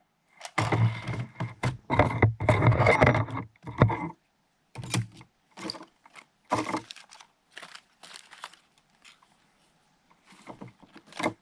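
Irregular handling noises: clicks, knocks, scrapes and rustling, densest over the first four seconds, then scattered clicks with a short lull before a few more near the end.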